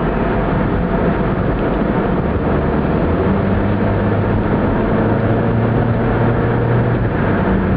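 Steady road noise of a vehicle driving along a highway: tyre and wind noise with engine drone, joined by a low steady hum from about three seconds in.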